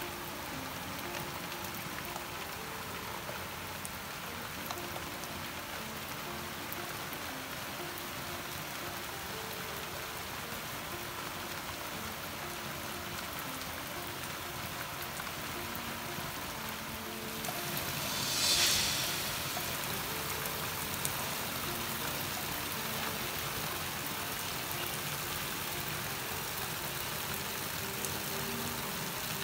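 Steady rain falling: a constant hiss of raindrops, with a brief louder rush about two-thirds of the way in.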